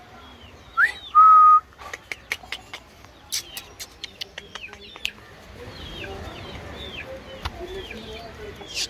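Small birds chirping over and over, with a short, loud whistle that rises and then holds one note about a second in. Sharp clicks and rustles come through the middle.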